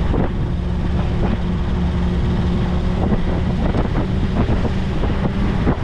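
Vintage Willys Jeep driving with the windshield folded down: its engine hums steadily under a heavy rush of wind buffeting the camera microphone.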